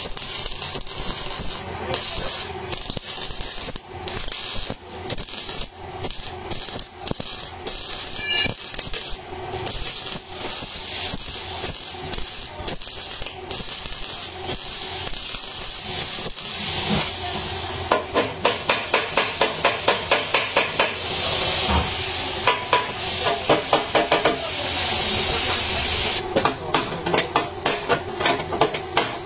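A steady hiss, broken by brief dropouts, for the first half or more. About two-thirds in it gives way to rapid, regular knocking, about three strokes a second.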